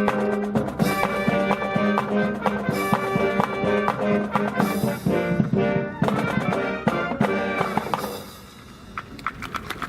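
Brass band music with trumpets, trombones and drums, which ends about eight seconds in. Quick, light taps follow near the end.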